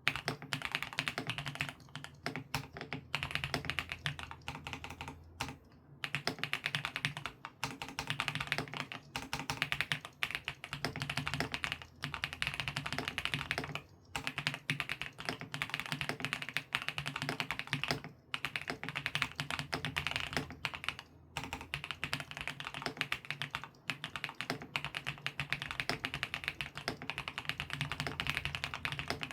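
Continuous fast typing on a Monstargear X504 Pro mechanical keyboard fitted with Bsun Brown Sugar Latte switches: dense runs of keystrokes, each broken by a brief pause every few seconds.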